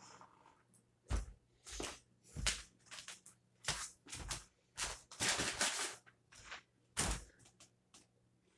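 A string of irregular knocks, thumps and scuffs, about a dozen between one and seven seconds in, from a person getting up from a table and moving about the room. The loudest is a sharp knock about seven seconds in.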